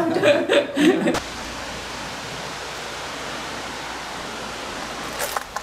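Steady, even rushing of wind and sea surf on a rocky seashore, starting abruptly about a second in, after a man's voice stops.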